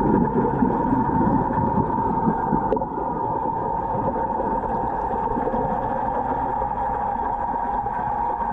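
Underwater sound inside a large aquarium tank: a steady hum of circulating water with a constant tone running through it. One faint tick about three seconds in.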